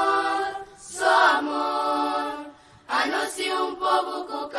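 Channel intro jingle of voices singing long held notes, choir-like with no instruments heard, breaking off briefly twice between phrases.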